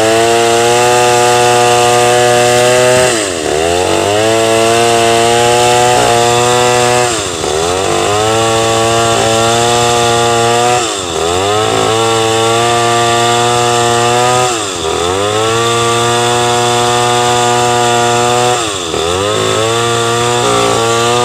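Two-stroke chainsaw running at high revs, its pitch dropping sharply and climbing back up about every four seconds, five times over.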